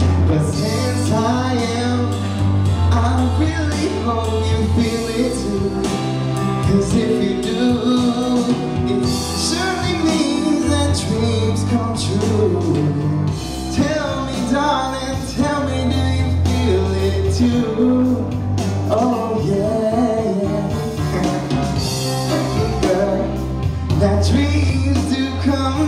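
Pop love song with a man singing live into a handheld microphone over a backing track with a deep bass line, played through a hall's sound system.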